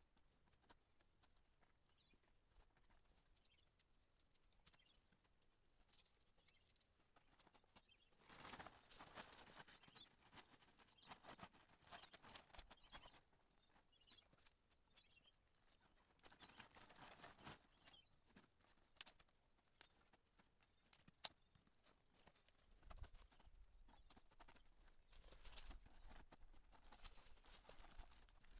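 Near silence, broken by faint scattered clicks and a few soft swells of rustling.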